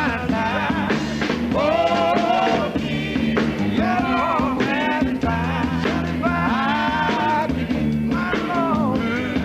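Gospel quartet song: voices singing over a steady band accompaniment.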